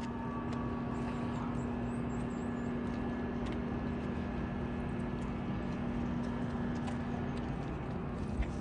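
Steady mechanical hum with a held low tone that fades out near the end, over outdoor background noise, with a few faint ticks.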